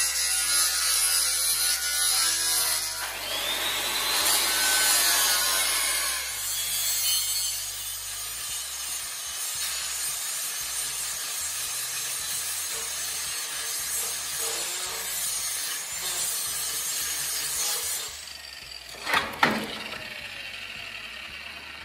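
Angle grinder grinding a steel plate bench top, a long steady hissing grind, fitted with a stone-cutting disc that the owner says was the wrong disc for grinding steel. The grinding stops near the end, followed by two sharp knocks and the motor winding down.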